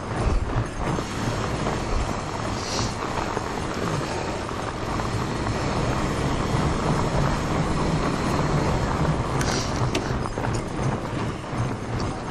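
Fat bike riding over packed snow: a steady rumbling noise from the wide tyres and the bike, with scattered clicks and rattles and two brief high squeaks.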